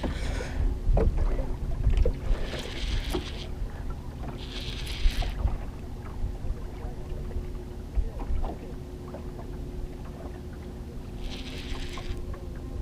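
Fishing boat's motor running steadily, a low rumble with a faint steady hum over it. Three short bursts of hiss come and go, and there are a few light clicks.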